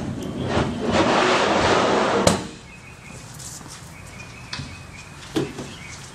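A plastic vault drawer sliding into its cabinet with a steady rushing scrape for about a second and a half, ending in one sharp knock as it shuts home. A few light knocks follow.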